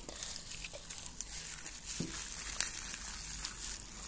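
Plastic wrapping crinkling and rustling as hands peel it off a potted plant, with a small knock about halfway through.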